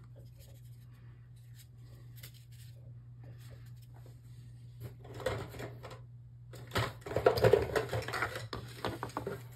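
Small 3D-printed plastic and paper model building handled and set down on a tabletop: faint clicks at first, then rustling and light clattering that grows louder over the last few seconds, over a steady low hum.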